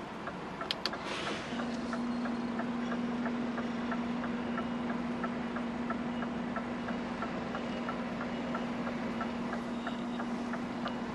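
Lorry cab indicator or hazard-light relay ticking evenly, about three clicks a second, over the truck's engine running. A steady low hum starts about one and a half seconds in.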